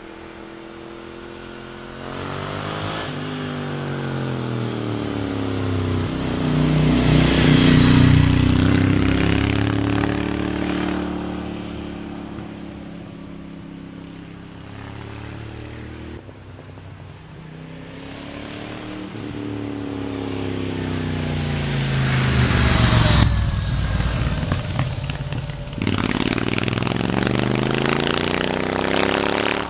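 Moto Guzzi V7 Racer's air-cooled V-twin, its dB killer fitted in the exhaust, riding the bends with its engine pitch sweeping up and down. It swells to its loudest about eight seconds in and again about 23 seconds in.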